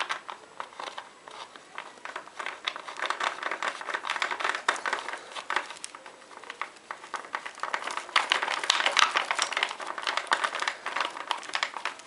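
Rapid small clicks, rattles and crinkling from hands handling wires and parts inside a motorcycle headlight shell, busiest in two stretches, one a few seconds in and one near the end.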